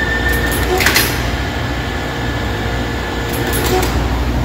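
Hypneumat dual drilling machine running with a steady motor hum, a short sharp sound about a second in and a few fainter ones between three and four seconds in.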